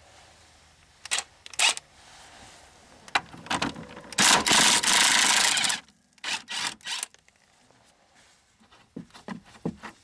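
Ryobi 1/2-inch cordless impact wrench hammering for about a second and a half, loosening the top 18 mm bolt of a rear shock absorber. Before and after it come a few metal clicks and knocks from the socket and tools.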